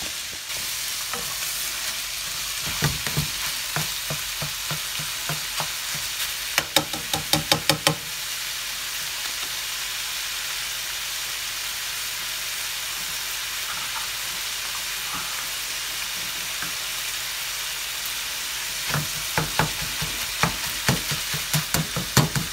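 Ground sausage and chopped bacon sizzling in a nonstick skillet. A slotted spatula chops and scrapes at the meat in quick strokes from about two and a half seconds in to eight seconds, and again near the end.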